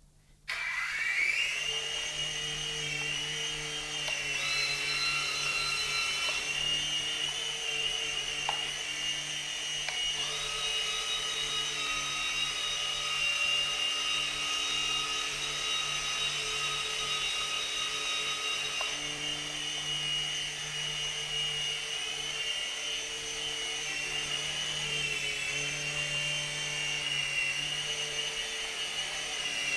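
Electric motors of a DFD Firewolf F103 micro RC helicopter spinning up from a stop about half a second in, with a rising whine. They then run as a steady high whine that wavers a little in pitch as the throttle changes. A second, higher whine comes in and drops out twice.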